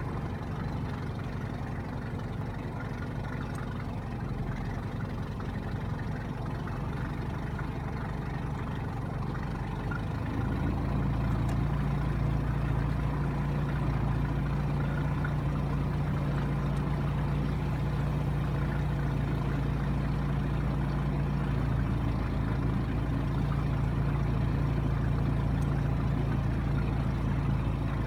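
Small outboard motor pushing a skiff, running steadily, then louder from about ten seconds in.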